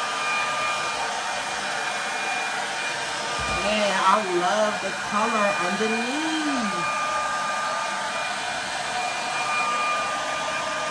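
Handheld hair dryer running steadily: a rush of air with a high, steady motor whine. A voice briefly sounds over it in the middle.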